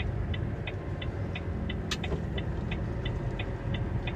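Truck engine running low and steady in the cab while the turn-signal indicator ticks evenly, about three clicks a second. A single sharper click sounds about two seconds in.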